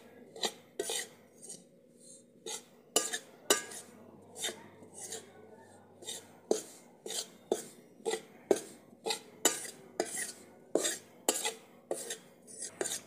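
Steel spoon scraping and clinking against a metal kadhai as crumbly roasted chickpea flour is stirred in ghee, in short strokes about twice a second.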